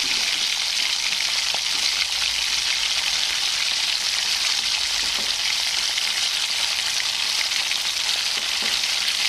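Hot oil tadka with fried sliced onions and green chillies poured onto a pot of boiled dal, sizzling steadily and evenly as the oil hits the liquid dal.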